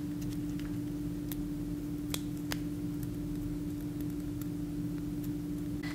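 Faint, sparse crinkles and clicks of a sheet of origami paper being folded and creased by hand, over a steady low electrical hum.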